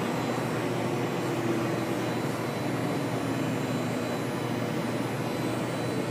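Steady rumble of a freight train's coal cars rolling past, heard from behind window glass, with no breaks.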